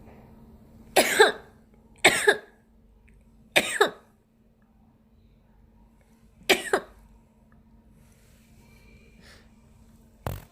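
A young woman sneezing four times in a row, each sneeze a short double-peaked burst, the first three about a second apart and the fourth after a longer pause, then one brief sharp burst near the end.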